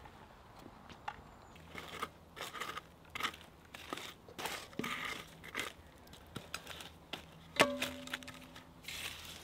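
Logs being laid into a campfire: wood knocking and scraping on stones and embers, with crunching and crackling. About seven and a half seconds in, one sharp knock rings briefly.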